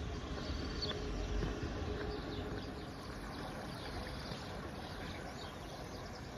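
Steady rush of a shallow river running over rocks, with many short, high bird chirps scattered over it.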